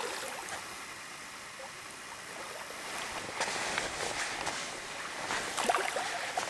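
Splashing and sloshing in shallow lake water at the shoreline, with a cluster of sharper splashes from about halfway through.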